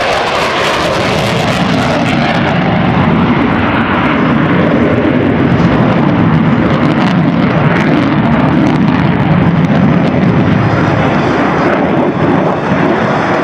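Jet noise from an F-15 Eagle's twin engines as it flies by in a banking turn: a loud, steady rumble that swells a little in the middle and eases near the end.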